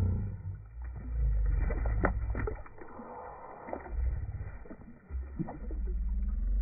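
Low, uneven rumbling that swells and fades in several surges, with a few faint clicks.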